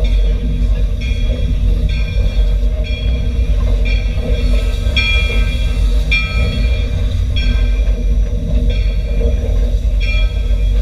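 Steam locomotive 41 rolling slowly into a station with a steady low rumble. Over the rumble, the engine's bell rings about once a second, each stroke fading before the next.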